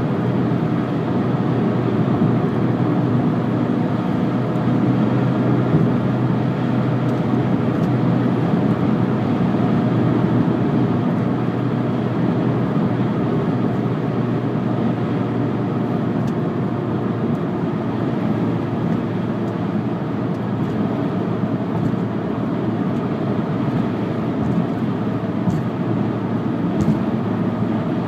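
Road and tyre noise inside a moving Volkswagen Jetta, with a steady low hum underneath, which the owner takes for a bad rear passenger-side wheel bearing.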